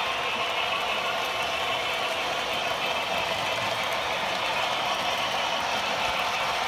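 HO scale model trains running on the layout: a steady mechanical whir and rattle of motors and wheels on the track.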